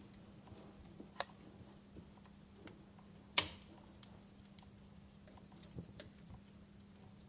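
Wood fire crackling in a fireplace: faint, irregular snaps and pops, the loudest single pop about three and a half seconds in.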